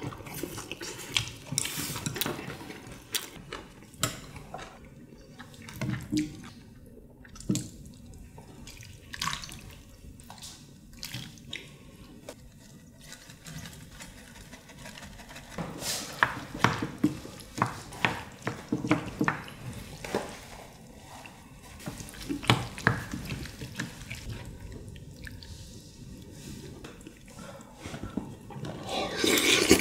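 Wet eating sounds, chewing and slurping stew, with scattered light clicks and taps of utensils against dishes.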